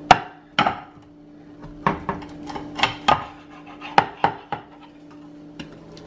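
Rolling pizza cutter wheel cutting through a hard, overcooked microwaved pizza crust on a glass plate. It makes a string of sharp, irregular clicks and crunches as the wheel strikes and scrapes the glass, over a faint steady low hum.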